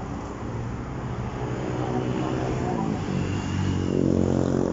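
A motor vehicle's engine running on the street, growing louder toward the end. Its pitch shifts about three seconds in.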